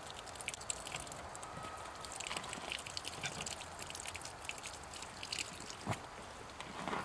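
Water faintly trickling and dripping from a newly installed frost-free hose hydrant as the hot water first runs through it: it leaks at the faucet until pressure builds and the valve seals. A single knock sounds near the end.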